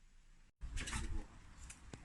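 Near silence for about half a second, then a short burst of clattering and a few sharp clicks.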